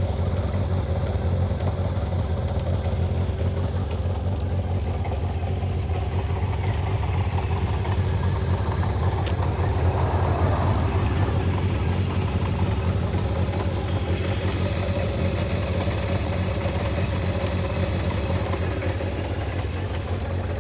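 Kawasaki Zephyr 750's air-cooled inline-four engine idling steadily and evenly, with a slight swell in level about halfway. It is running smoothly after its carburettors were resealed and adjusted.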